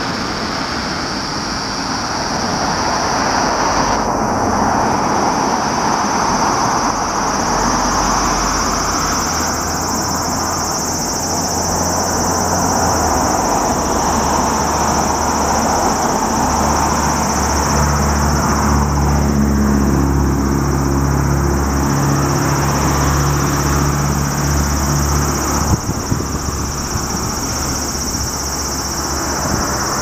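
Steady road traffic noise from passing vehicles, with a heavy vehicle's engine humming low from about halfway through until near the end, over a constant high whine.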